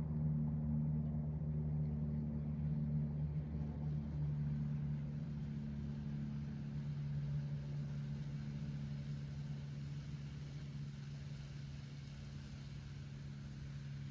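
A motor vehicle's engine running, a steady low hum that slowly fades.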